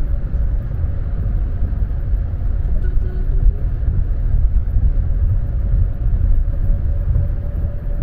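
Steady low rumble of a car driving at highway speed, heard from inside the cabin: tyre and road noise with the engine underneath, plus a faint steady hum.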